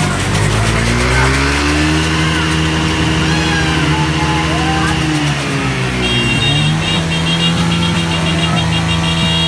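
A motor vehicle engine revved up and held, easing off about five seconds in and revved again, with a high pulsing beep joining about six seconds in.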